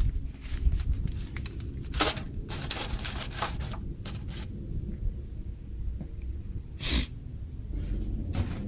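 Aluminium foil crinkling in a few bursts as the foil cover is pulled off a foil roasting pan, with one more short crackly burst near the end, over a low rumble on the microphone.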